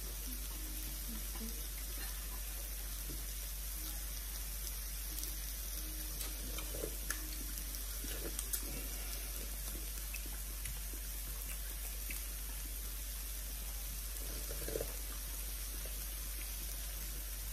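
Steady sizzling hiss of meat grilling on an electric grill-and-hotpot pan, with the broth in its centre pot simmering, and a few light clicks of chopsticks on the plate.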